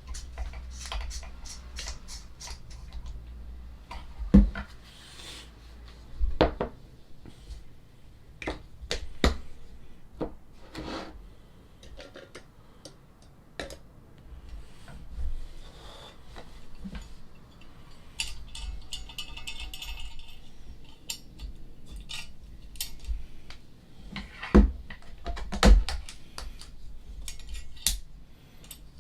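Clinks and knocks of cups, utensils and camping cookware being handled while making coffee, scattered and irregular, with a few louder knocks and a brief rattling stretch a bit past the middle.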